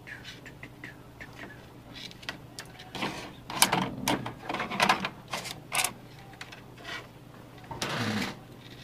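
Small parts being handled by hand: a run of sharp clicks, knocks and rattles about three to six seconds in, then a short rustle near the end.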